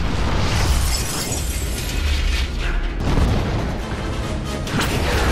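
A rapid string of film explosions cut one after another: booms and rushing fire with debris crashing, over a constant low rumble, the sound changing abruptly about three seconds in and again near the end.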